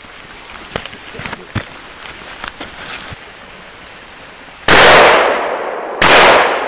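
Two shotgun shots about a second and a half apart, each loud with a trailing echo that fades over about a second. Light rustling and ticks come before them.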